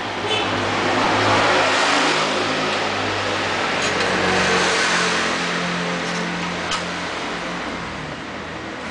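A motor vehicle passing by: engine and road noise swell over the first second or two, hold, then slowly die away.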